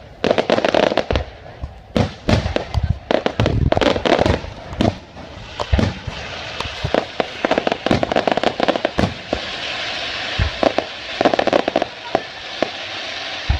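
Fireworks grand finale: many sharp bangs in quick, overlapping volleys, with a dense continuous crackle filling in from about halfway through.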